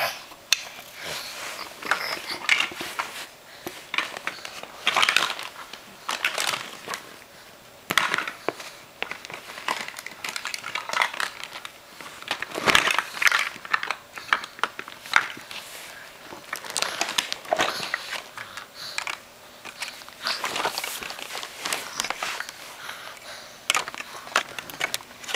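Clear plastic bag of Mega Bloks crinkling and rustling in irregular bouts as a toddler's hand rummages inside it, with occasional clicks and a knock of plastic blocks.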